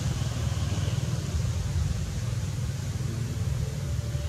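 Steady low outdoor rumble with a faint even hiss above it, unchanging throughout.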